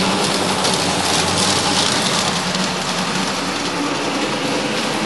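LGB garden-scale model tram running along its track: a steady whirring, rolling hiss from its motor, gears and wheels, with a low hum that fades a little as it moves away.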